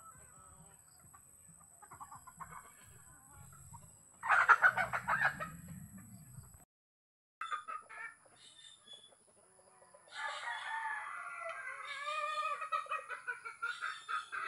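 Native chickens calling: a loud rooster call about four seconds in, then a longer run of crowing and clucking from about ten seconds on.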